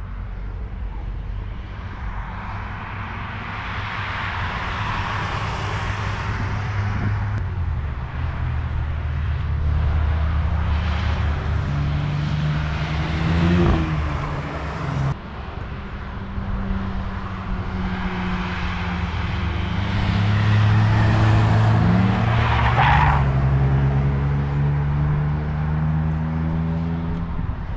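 Cars driven hard through a corner of a race track, passing one after another, their engines rising and falling in pitch as they accelerate, shift and go by. The sound drops suddenly about halfway through, then builds again as more cars come through.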